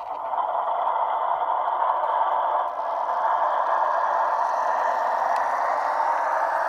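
Märklin ALCO PA-1 model diesel locomotive pulling a freight train along Märklin M-track: a steady whirring rattle of the motor and wheels on the metal track. It grows louder over the first half-second as the train gets under way, then runs steadily.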